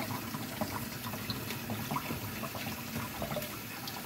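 Kitchen faucet water running into a fine mesh strainer and splashing through it into the sink as fingers mash and rinse cantaloupe pulp off the seeds. Steady running water with small scattered splashes and clicks.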